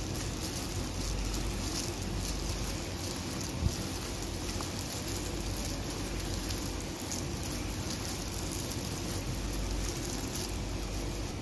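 A hand in a plastic bag working crumbly flour dough in a plastic tub: a steady crackle and rustle of the plastic and the dry crumbs, with one short knock about three and a half seconds in.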